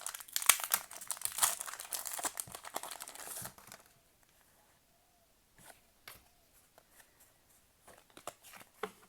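Foil booster pack wrapper crinkling and tearing open for about three and a half seconds, then only faint scattered rustles and clicks as the cards are handled.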